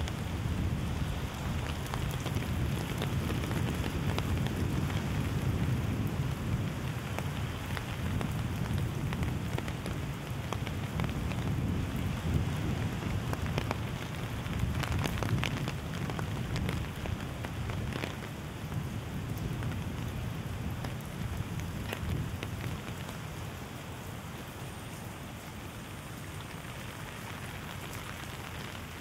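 Steady rain with many small sharp drop hits, over a low rumble. It grows a little quieter over the last few seconds.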